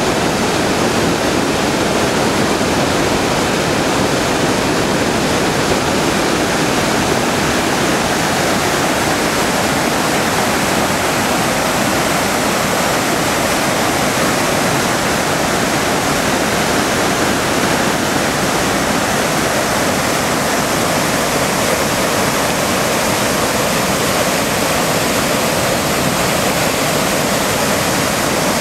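Mountain torrent pouring down a stepped stone channel: a loud, steady rush of white water.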